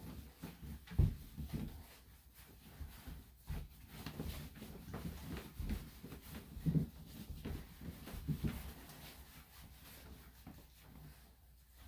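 Soft, irregular rubbing and low bumps from a dog being handled on a grooming table, with no clipper running.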